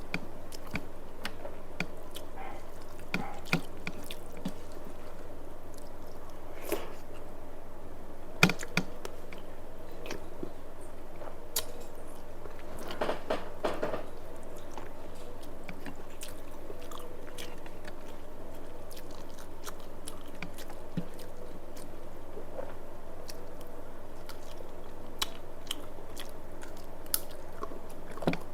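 Close-up chewing of mouthfuls of rice and curry, with wet mouth smacks and clicks scattered throughout. One sharper click comes about eight and a half seconds in, and a cluster of clicks comes around thirteen seconds. A steady low hum runs underneath.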